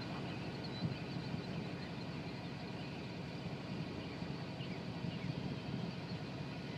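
A motor vehicle's engine running steadily, a low, even hum with a few faint chirps over it.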